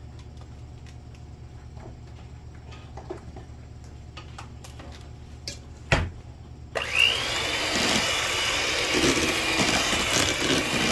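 Electric hand mixer switched on about two-thirds of the way in, its beaters running through boiled potato chunks in a steel bowl to break them up for mashed potatoes. Before it starts there is only a low hum, a few light clicks and one sharp knock.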